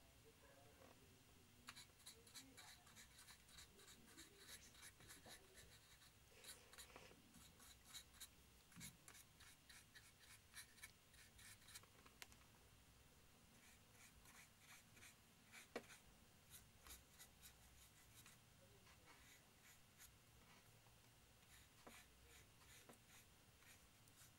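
Faint, quick scratchy strokes of a paintbrush working paint, many short strokes in a row starting about two seconds in.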